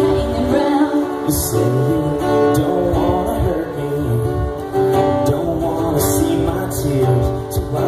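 Acoustic guitar strummed as accompaniment to a live song, with some singing over it.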